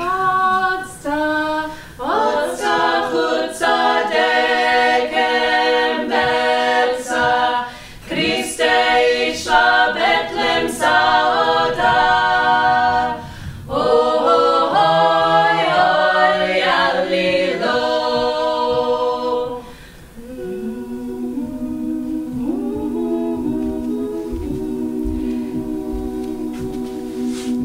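A small vocal ensemble singing a Georgian folk song a cappella in close harmony. About twenty seconds in the singing drops to a softer passage over a held low note.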